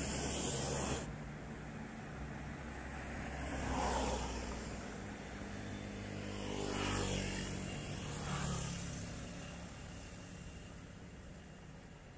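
Road traffic: vehicles passing one after another, each swelling and fading, the loudest about four seconds in, then two more close together later; the sound dies away near the end.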